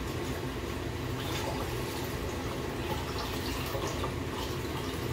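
Chicken stock splashing and sloshing in a stockpot of sautéed vegetables as it is poured in and stirred with a wooden spoon.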